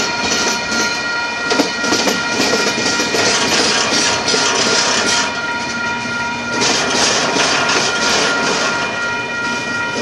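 Union Pacific double-stack container train passing close by: the last diesel-electric locomotives, then double-stack well cars rumbling and rattling past, with wheels clicking over the rail joints. A steady high-pitched whine runs through it.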